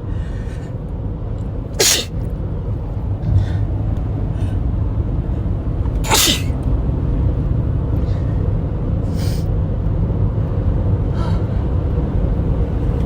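A person sneezing hard twice, about two seconds and six seconds in, part of an uncontrollable sneezing fit, over the steady low rumble of a car's cabin on the move.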